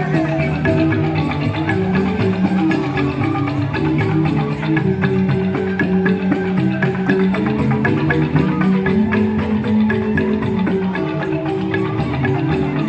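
Balinese joged bumbung gamelan: bamboo xylophones (grantang) playing a fast, dense run of struck notes with percussion, a continuous lively piece.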